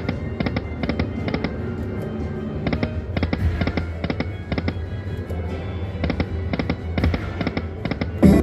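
Video slot machine sound effects: clusters of short electronic clicks and chimes, two or three at a time, over a steady electronic music loop, with a louder hit near the end.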